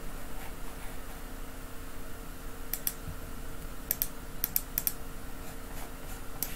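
Sharp clicks of a computer mouse and keyboard, several in quick pairs and small clusters in the middle few seconds, over a faint steady hum.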